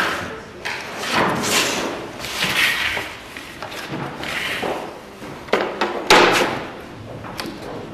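Paper and a long straightedge handled on a wooden board: several scraping, rustling swishes, then two sharp knocks about five and six seconds in.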